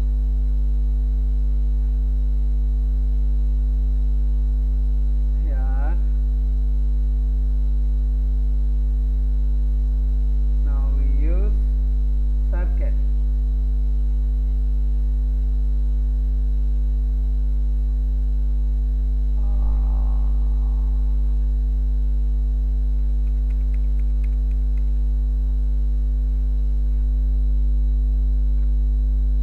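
Loud, steady electrical mains hum: a low buzz with a stack of overtones, with a few faint, brief sounds over it.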